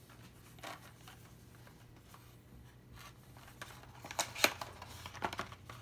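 A small cardboard product box being handled and opened by hand: quiet rustling and scraping of cardboard, then a cluster of sharper clicks and taps about four seconds in.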